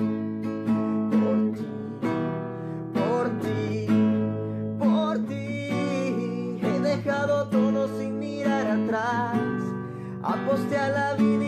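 Background music: a song with acoustic guitar picking, and a singing voice that comes in about five seconds in.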